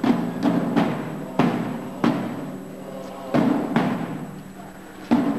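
Procession drums beating a slow march: loud strikes that ring on, falling in pairs about every second and a half.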